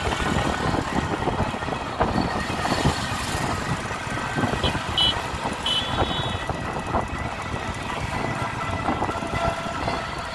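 Riding noise from a two-wheeler moving through road traffic: a steady rumble of wind on the microphone mixed with engine and tyre noise. Two short high-pitched beeps sound about halfway through.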